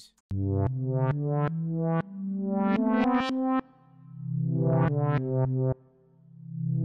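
Reversed synthesizer keys from Logic Pro's ES P synth playing back: notes and chords swell up out of nothing and stop suddenly, again and again, the backwards sound of audio played in reverse.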